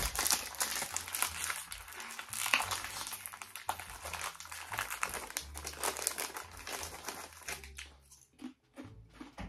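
Crinkling plastic snack packaging as a small pack of Cheez-It crackers is handled and opened. The dense crackling thins to scattered crackles near the end.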